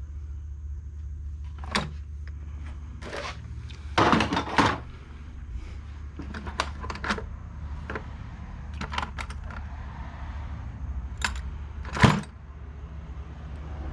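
Scattered clicks, knocks and clatters of small tools and metal parts being handled while a chainsaw carburetor is taken apart, with a short cluster of clatter about four seconds in and the loudest knock near the end. A steady low hum runs underneath.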